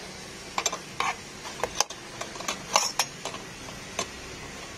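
Irregular light metal clicks and taps, about eight of them, from handling a bus's air filter element in its housing and fitting the fastener on the housing's centre stud.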